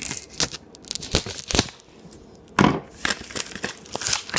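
A Smith & Wesson knife cutting open packaging, the wrapping rustling and crackling between scattered clicks and knocks; the longest, loudest cut comes about two and a half seconds in.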